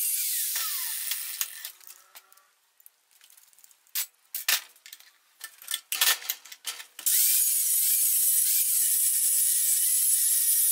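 Angle grinder with a thin cut-off disc cutting through the excess end of a steel bolt clamped in a bench vise. It is switched off at the start and winds down with a falling whine, followed by a few metal knocks and clanks as the piece is handled in the vise. About seven seconds in the grinder spins up again and cuts steadily, a loud high hiss.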